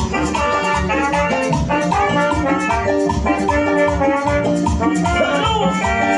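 Live band playing Latin dance music at full volume, with a steady drumbeat under sustained keyboard or brass notes.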